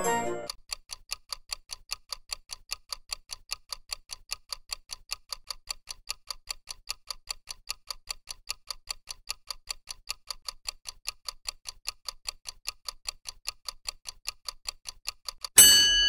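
Clock-style ticking sound effect of a countdown timer, about four even ticks a second. As the count reaches zero near the end, a loud steady alarm tone sounds.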